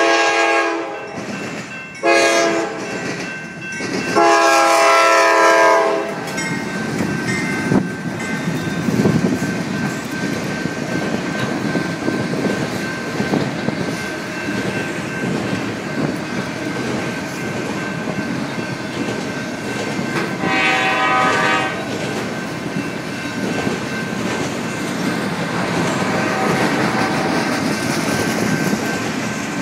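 Norfolk Southern diesel locomotive's air horn blowing: a blast that ends about a second in, a short one, then a longer one about four seconds in. The locomotives and a long string of auto rack cars then pass close by, with a steady rumble and the clickety-clack of wheels on the rails.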